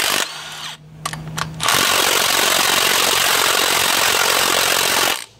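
Cordless impact tool hammering at a 13 mm rocker arm bolt: a short run, a quieter steady whir of about a second and a half, then about three and a half seconds of loud, steady hammering that cuts off suddenly near the end.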